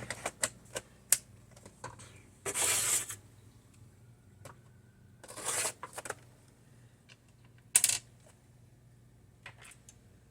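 Plastic clicks and knocks with three short sliding scrapes as a laptop optical drive is handled and pushed into its bay.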